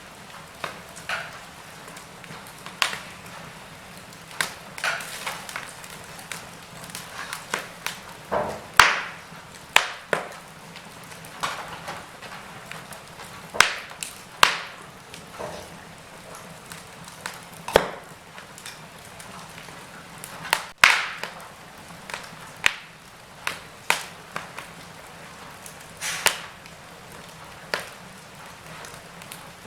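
Wood fire crackling in a fireplace: irregular sharp pops and snaps, a few a second, over a steady soft hiss of the flames.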